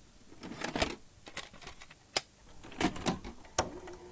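About half a dozen irregular sharp clicks and clunks, mechanical in character, with a steady low hum starting near the end.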